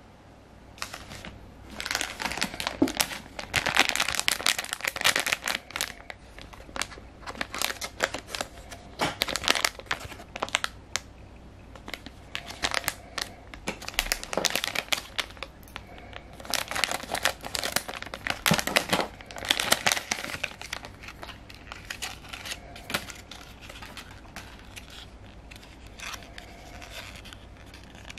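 Plastic blind-bag wrapper crinkling and tearing as it is handled and opened, in irregular bursts of crackle that come in clusters and grow quieter in the last several seconds.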